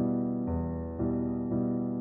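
Background music played on a keyboard, with new notes struck about every half second.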